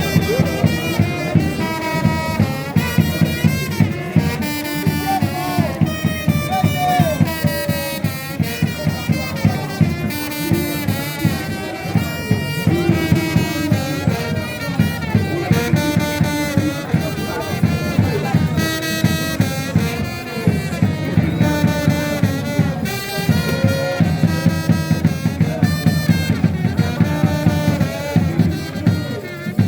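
Music led by brass horns over a fast, steady beat.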